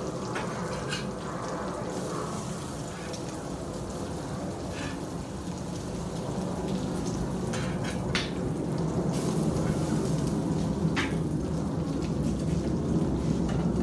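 Diced bacon and hash browns sizzling on a hot Blackstone flat-top griddle, a steady crackle that slowly grows louder. A few sharp clicks and scrapes of a metal spatula come in the middle and later, as the hash browns are flipped.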